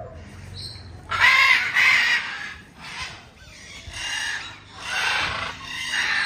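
Birds calling several times with rough, raspy calls; the loudest pair comes about a second in, and more follow every second or so.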